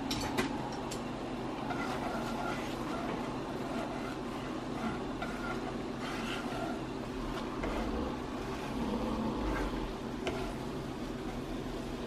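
Cream sauce bubbling in a frying pan on the stove over a steady background hum, with a few light clicks of a spoon against the pan as it is stirred.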